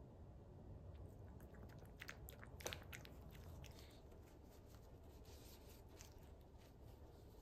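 A small dog lapping yogurt from a ceramic bowl: a run of faint wet clicks, the loudest about two and a half seconds in. Then a soft rustle of a tissue wiping its mouth.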